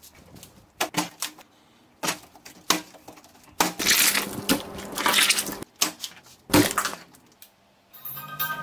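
A string of short, wet crushing and smashing noises with quiet gaps between them: food being squashed and broken apart by hand, the longest and loudest stretch from a watermelon being torn open.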